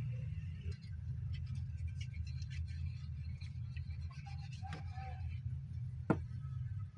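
Light handling noise from a glue bottle, wooden block and sandpaper on a cloth-covered table: faint scattered ticks and scratches over a steady low hum, with one sharp click about six seconds in.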